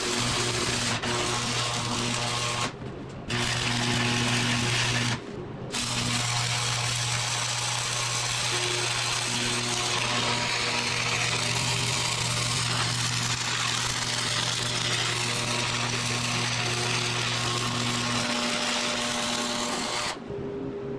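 Wire-feed welding arc crackling steadily while a square steel tube is welded to a steel plate. The arc breaks off briefly about three seconds in and again about five seconds in, then stops near the end.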